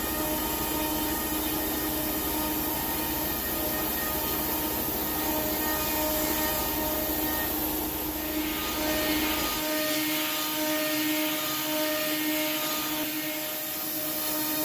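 Home-built CNC router's spindle running steadily while a 2-flute 6 mm end mill cuts a deep slot in hardwood form ply, with the compressed-air blast hissing as it clears the chips. A low hum underneath cuts out about ten seconds in.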